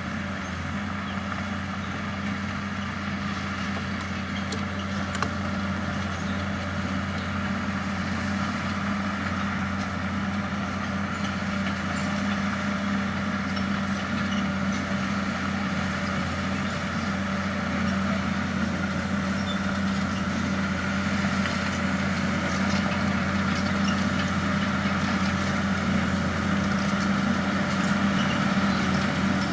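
Bulldozer's diesel engine running steadily, slowly growing louder.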